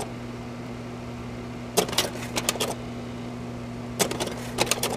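Steady low electrical hum, with two short clusters of rapid sharp clicks: one about two seconds in and one near the end.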